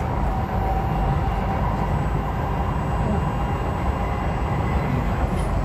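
Kawasaki Heavy Industries & Nippon Sharyo C751B electric multiple unit running between stations, heard from inside the passenger car: a steady low rumble of wheels on rails.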